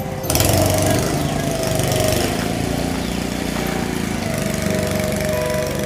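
Motorboat engine running steadily, heard from aboard the boat as it moves along a backwater canal; the sound cuts in abruptly just after the start.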